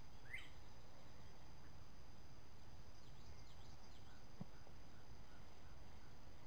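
Woodland ambience: a steady high insect drone, a bird's short rising call near the start, and a few faint chirps later. There is one soft knock about four seconds in.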